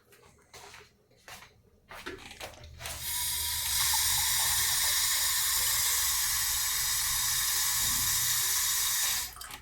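Water running into a glass goblet in a steady stream for about six seconds, cutting off near the end, after a few light handling knocks.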